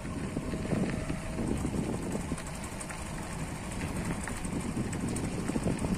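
Wind buffeting the phone's microphone: an uneven low rumble that rises and falls in gusts.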